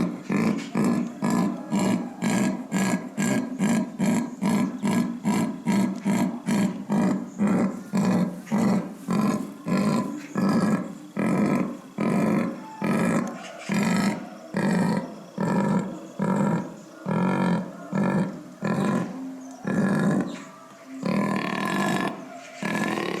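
Jaguar's sawing call: a long series of coarse, rhythmic grunts, about two or three a second at first, slowing and spacing out toward the end.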